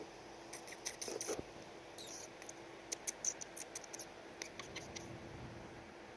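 Two baby woodpeckers shuffling and pecking at close range: a string of short, soft, irregular scratchy clicks.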